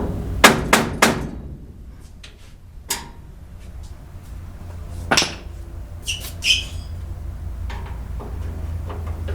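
Metal hand tools and loosened fasteners being handled: three quick knocks, then a single click, a further knock, and two short ringing metallic clinks near the end, over a steady low hum.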